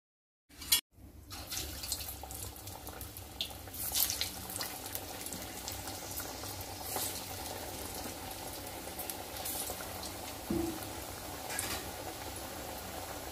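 Corn cutlets deep-frying in hot oil in a kadhai: a steady sizzle with scattered pops and crackles. A sharp knock comes about a second in.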